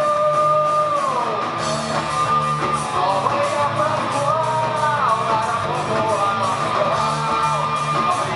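Live rock band playing an instrumental passage: guitar holding long notes that slide down in pitch about a second in and again near five seconds, over a steady bass line and an even beat.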